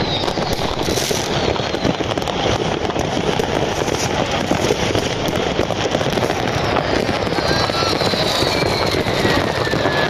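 Many fireworks going off at once: a dense, continuous crackling and popping of rockets and firecrackers. In the second half a few high whistles fall in pitch.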